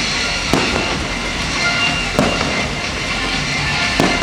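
Fireworks bursting: three sharp bangs about a second and a half apart, over steadily playing music.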